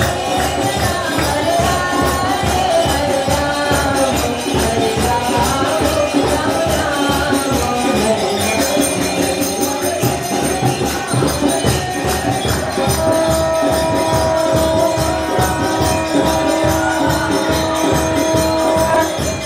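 Devotional kirtan music with a fast, even beat of jingling percussion and drum. A wavering melody in the first half gives way, about two-thirds through, to a steady held chord.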